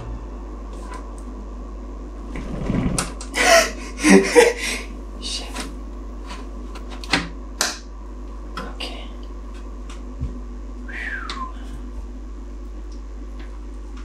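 Clicks, knocks and scraping of a large graphics card being handled and fitted into a PC case slot, with a busy run of rattling about three to four seconds in and a few single sharp clicks later.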